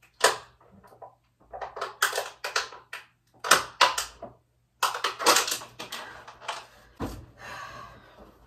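A person drinking from a plastic water bottle: a run of short gulps and handling noises from the bottle, coming in irregular clusters with brief pauses between them.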